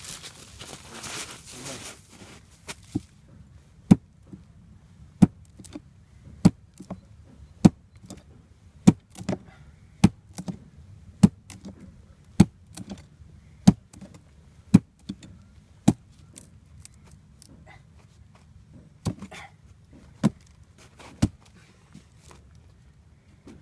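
DOF plastun knife chopping into a damp oak log: sharp chops at a steady pace of roughly one a second for about a dozen blows, then a short pause and three more near the end.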